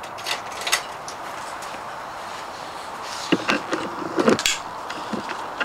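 A key going into a motorcycle's ignition gives a couple of light clicks near the start. A cluster of knocks and rustles follows about three to four and a half seconds in as the camera is handled. A steady hiss runs underneath, and the engine is not running.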